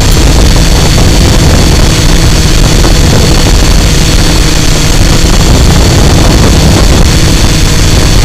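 Drone's electric motors and propellers running with a loud, steady whine, picked up by a camera carried on the drone, over a heavy rumble of wind buffeting the microphone.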